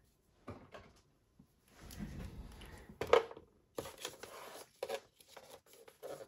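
Paper rustling and light knocks as a small paper envelope's flaps are folded and pressed down by hand on a scoring board, with one sharper knock about three seconds in.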